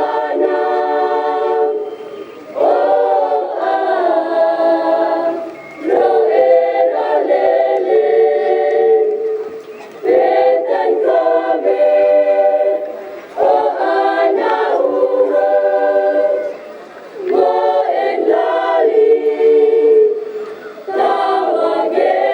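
Choir singing in phrases of about three to four seconds, with a short break for breath between phrases.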